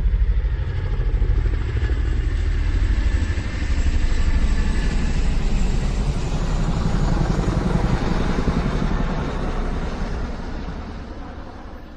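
A motor vehicle engine running steadily, then fading away over the last couple of seconds.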